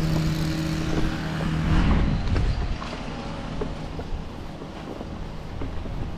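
A motor running at a steady pitch stops about two seconds in, followed by wind noise on the microphone and light rustling.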